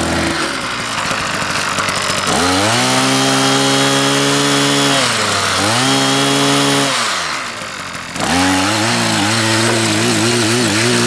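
Ching Yee CY50 power tiller's 48.6 cc engine idling, then revving up about two seconds in and held at high speed, with a brief dip midway. It drops back toward idle around seven seconds, then revs up again, its pitch wavering unevenly as the rotary blades dig into hard, stony soil.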